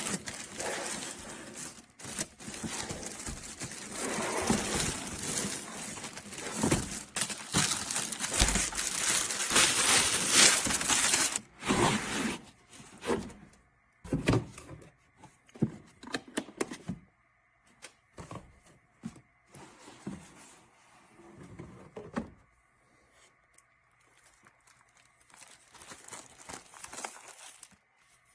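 Wood cracking, crunching and rustling in irregular bursts, dense and loud for the first twelve seconds or so, then scattered short crackles with quiet gaps.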